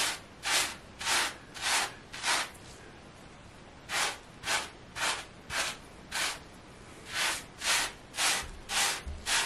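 Wave brush bristles stroking through wet, shampoo-lathered hair: short swishes about two a second, in three runs of five strokes with brief pauses between.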